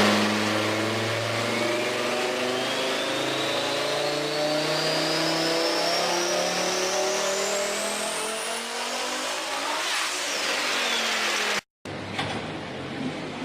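Fiat Marea engine and exhaust running hard, its pitch climbing slowly, then dropping away about ten seconds in. The sound cuts out briefly near the end.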